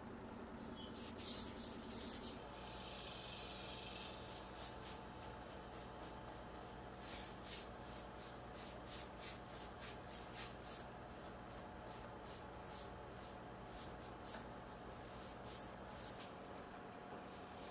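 Paintbrush stroking wet primer across a laminate tabletop: a faint run of soft swishes, about two a second, over a low steady hum.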